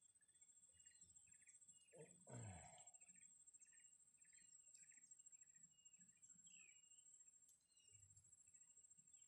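Faint outdoor ambience: a steady high-pitched insect drone with a bird's short chirps repeating about twice a second. About two seconds in comes a brief louder swish that falls in pitch.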